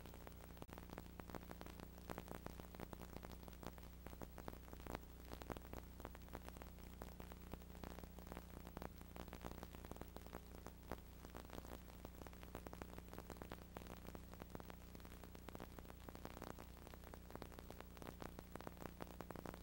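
Faint, steady low hum with irregular crackling static and tape hiss: the near-silent audio track of an old VHS tape.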